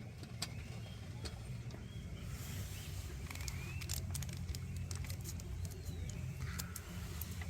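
Short bird chirps over a steady low rumble, with scattered light clicks.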